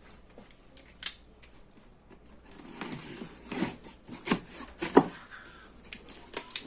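Cardboard box being opened and its packaging handled: scattered rustling with several sharp clicks and knocks, the loudest about five seconds in.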